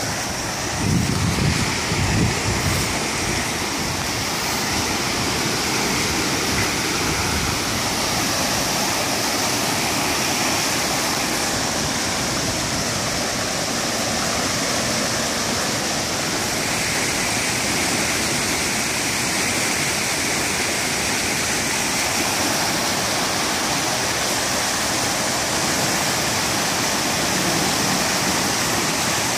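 Flash-flooded creek rushing, a loud steady wash of fast, turbulent floodwater. A few brief low thumps come in the first couple of seconds.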